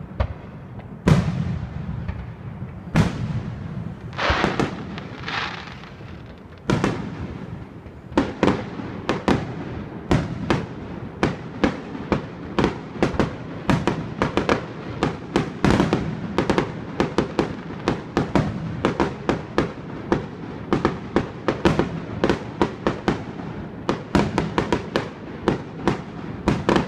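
Fireworks display: a few heavy booms with rumbling tails in the first seven seconds, then rapid crackling pops, several a second. Loud, with surround-sound echo off the buildings.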